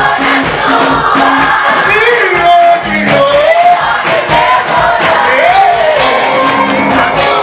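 Live praise-and-worship music: voices singing a melody over a regular drum beat.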